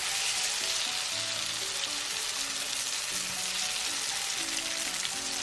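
Mung bean balls deep-frying in hot oil: a steady, dense sizzle. Soft background music plays underneath.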